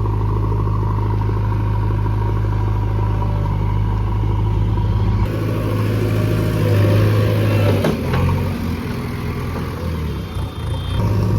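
A JCB excavator's diesel engine running steadily, then working harder about halfway through with added clatter and a single sharp knock, before settling back near the end.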